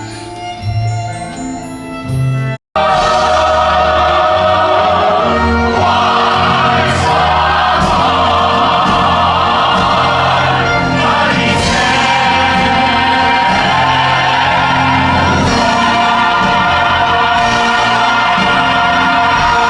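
Music: a soft instrumental passage, cut off abruptly about two and a half seconds in, then loud, full choral singing over orchestra, with cymbal-like crashes now and then.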